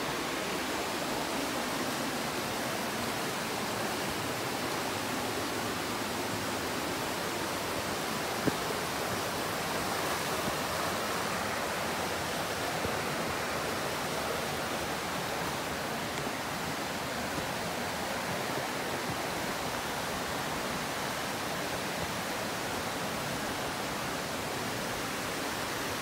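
Steady rush of flowing river water, an even unbroken hiss, with one brief knock about eight seconds in.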